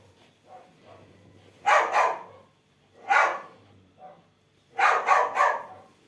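A dog barking in short bursts: a double bark about two seconds in, a single bark about three seconds in, and three quick barks around five seconds, with fainter sounds between.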